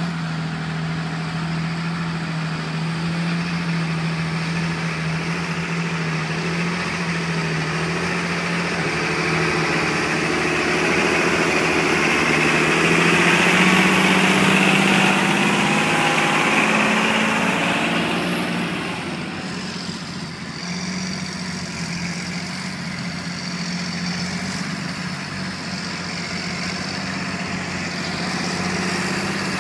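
Large John Deere tractor's diesel engine running steadily under load while pulling a land-levelling box through soil. It grows louder as the tractor passes close, with a thin high whine at its loudest, then drops back a little and runs on.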